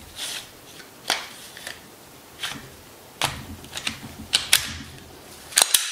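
Glock 19 pistol's slide being fed back onto the frame rails by hand: a string of separate light metallic clicks, with two or three sharper clacks close together near the end.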